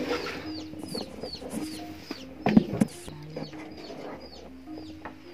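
Chickens clucking, with many short, high, falling peeps repeating throughout. A single sharp knock about two and a half seconds in is the loudest sound.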